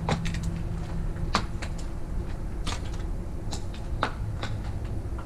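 Footsteps crunching and clicking on debris underfoot: about a dozen irregular sharp crackles over a low steady hum.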